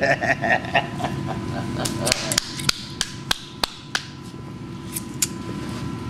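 Sharp metallic taps and clicks on a small steel plate worked with a pliers-wrench, about three a second for a couple of seconds, then one more near the end.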